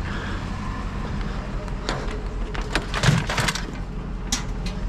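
Hard plastic and metal scrap being handled and broken apart: a scatter of sharp cracks and knocks, a cluster of them about three seconds in, over a steady low hum.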